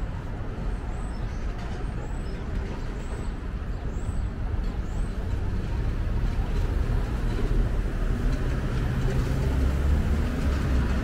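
City street traffic noise: a steady rumble of passing vehicles, with a heavy vehicle's low engine rumble growing louder over the second half.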